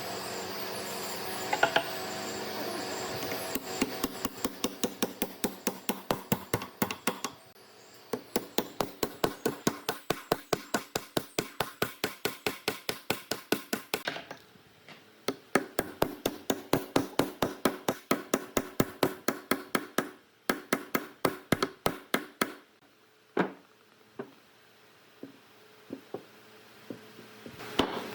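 Rapid, even hammer blows on wood, about five strikes a second, in long runs with a couple of short breaks and only a few scattered blows near the end. A steady machine-like hum with held tones comes before the hammering starts.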